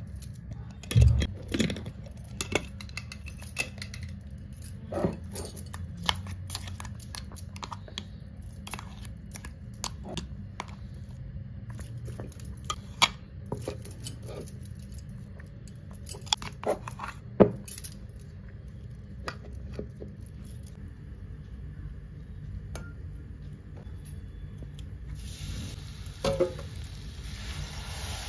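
Scattered clinks and knocks of steel kitchenware being handled, over a low steady hum. About 25 seconds in, a steady sizzle starts as crumbled paneer and milk go into a hot steel kadai.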